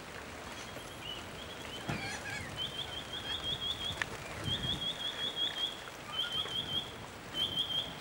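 Noisy miner calling: four runs of quick, high repeated notes, the later runs shorter, over steady rain.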